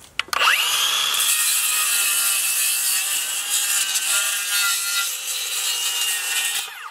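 Cordless circular saw spinning up about half a second in, then cutting steadily through the bony armored plates of a plecostomus (armored catfish), its whine shifting slightly under load, and winding down just before the end.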